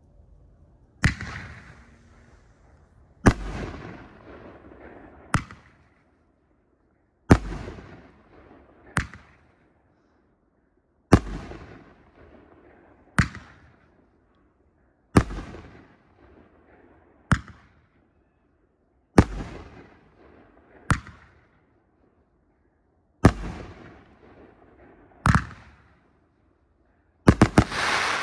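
Pyro Diablo 'Dead Shot' 9-shot firework cake firing: sharp, loud, hard-hitting reports about every two seconds, each trailing off in an echo. Near the end several reports come in quick succession.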